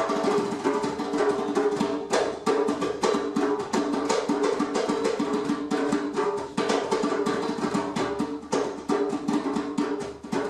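Live percussion jam: drums and wood-block-like strikes in a fast, steady rhythm over sustained pitched notes.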